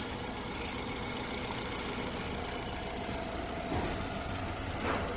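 A motor running steadily, with two short clicks or knocks in the second half.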